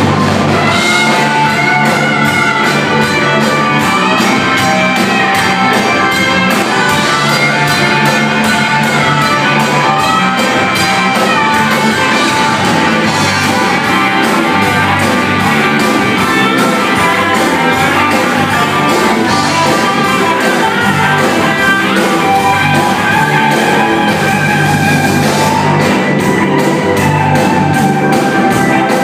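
Live rock band playing, with electric guitars and drums, heard from the audience in a large hall.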